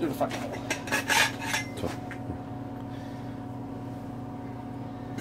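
Metal bar clanking and scraping inside a stock Harley exhaust pipe as the catalytic converter is knocked out of it: a quick run of sharp metallic clinks and knocks over the first two seconds, then it stops. A steady low hum runs underneath.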